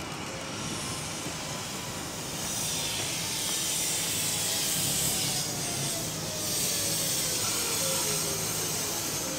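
Sydney Trains S-set double-deck electric train approaching and passing close by. Wheels on the rails with a hiss that grows louder about two and a half seconds in, under a whine that falls steadily in pitch.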